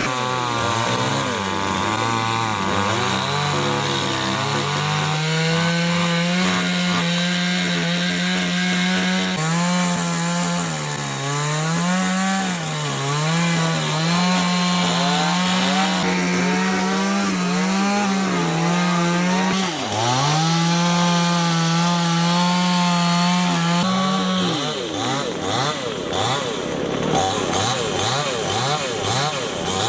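Chainsaw running and cutting timber, its engine note dropping as the chain bites and climbing again as it frees, over and over. About 24 seconds in, the sound changes to a quickly wavering pitch.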